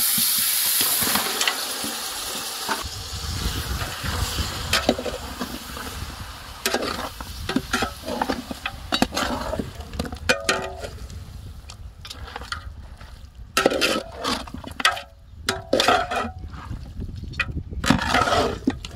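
Raw mutton pieces frying in hot oil with onions and green chillies: a loud sizzle at first that fades after a few seconds. A metal ladle then stirs and scrapes the meat around the pan, with repeated clinks and scrapes that grow more frequent near the end.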